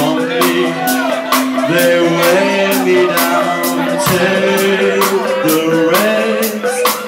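Live indie rock band playing: electric guitar, bass guitar and a steady drum beat, with a male singer singing into a microphone.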